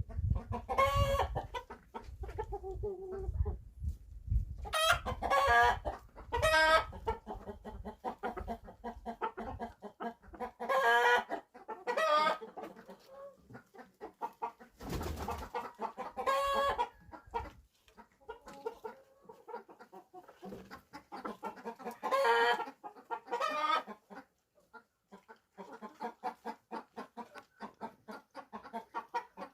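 Chickens clucking and squawking in a series of loud, repeated calls, with low thuds during the first several seconds.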